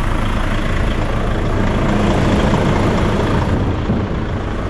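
Volvo truck's diesel engine idling steadily.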